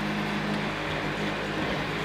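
Wood-Mizer portable band sawmill's engine running steadily between cuts.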